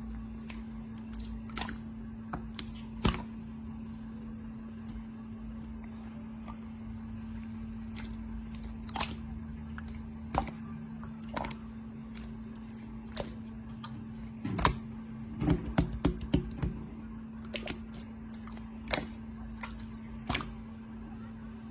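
Clear slime being squeezed and stretched by hand, giving scattered sticky clicks and pops, with a quick flurry of them about two-thirds of the way through. A steady low hum runs underneath.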